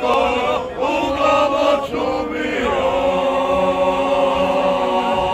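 A group of men singing a traditional folk song together, unaccompanied. After some shorter phrases, about halfway through they settle into one long held chord.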